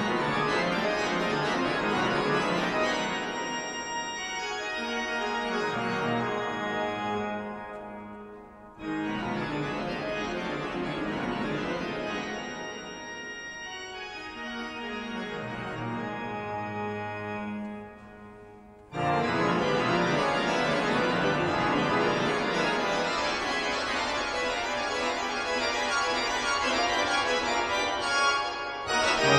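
Danion-Dargassies pipe organ playing loud, dense, fast passages. These come in three sections, each starting suddenly: at the start, about 9 seconds in and about 19 seconds in, with a short dip between them where the sound dies away in the church's reverberation.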